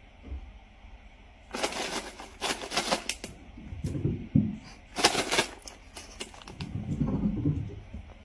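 A bag of cat treats shaken in two bouts of crinkling rattle, then dull thumps of a cat's paws as it runs up carpeted stairs.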